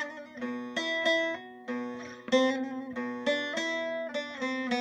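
Background music: a plucked string instrument, guitar-like, playing a melody of separate notes, each struck sharply and ringing briefly.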